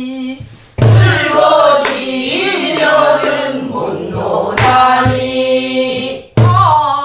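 Voices sing a slow, mournful Namdo folk-song line with heavy wavering vibrato. A buk barrel drum is struck with a stick a few times: about a second in, near five seconds, and again near the end.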